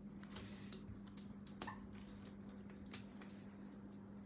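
Faint clicks and rustles of nitrile-gloved fingers and tweezers pressing strips of foil tape onto a laptop keyboard's metal back plate, with a sharper click about a second and a half in. A steady low hum runs underneath.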